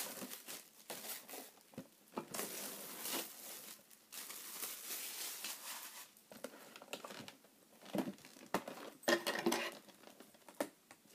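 Packaging being handled and opened, a cardboard box and clear plastic wrapping: irregular rustling and crinkling that comes in several bursts.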